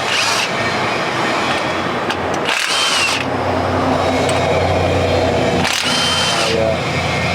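A power tool running in three short bursts, each about half a second long with a high whine, and a steady low machine hum between them.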